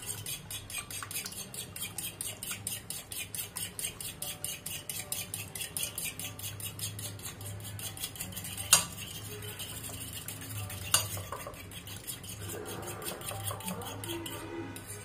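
A fork beating two raw eggs in a bowl: quick, even clinks of the fork against the bowl, with two sharper knocks around the middle.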